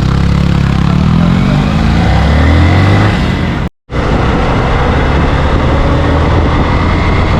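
Motorcycle engine accelerating, its pitch rising steadily for about three seconds, then a sudden brief dropout to silence, followed by steady engine and rushing wind and road noise.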